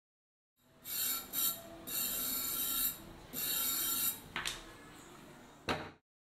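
A putty knife scraping along a rusty steel pump barrel in several rubbing strokes, the longest about a second. It is followed by two sharp knocks near the end.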